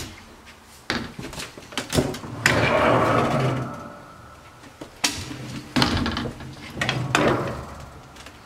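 Folding wooden attic ladder being pulled down from its ceiling hatch: a long creaking squeak as the hatch swings open, then several wooden knocks and rattles as the folded ladder sections are unfolded.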